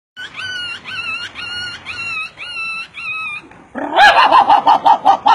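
A man imitating animal cries with his voice: six high, even whines about half a second apart, then after a brief pause a louder, fast run of short yaps, about eight a second.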